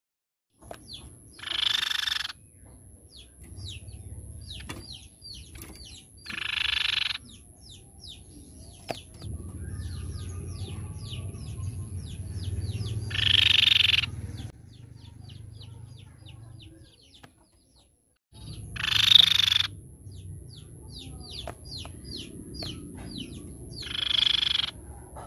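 Crescent-chested babbler (tepus pipi perak) giving five loud, harsh calls, each under a second long and spaced several seconds apart. Many short, high, falling notes come in between.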